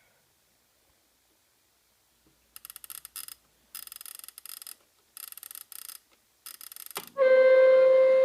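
GE 7-4321C flip clock radio's alarm going off: four short rasping buzzes, then, about seven seconds in, a loud steady buzzing tone.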